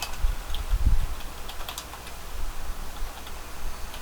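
Typing on a computer keyboard: scattered, irregular key clicks, with a dull low thump about a second in.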